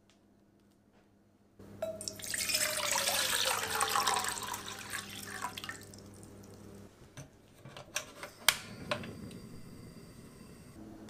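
Water poured from a glass carafe into an enamel saucepan, a loud splashing pour starting about a second and a half in and lasting about four seconds, its tone dropping slightly. Near the end, a few sharp clicks as the portable gas stove's knob is turned and the burner lights, followed by the low rush of the flame.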